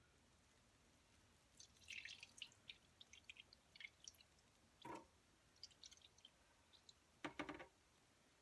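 Faint dripping and patter of liquid dye falling from a measuring cup onto wet wool yarn, followed by two short, soft wet squelches as the soaked yarn is pressed by hand.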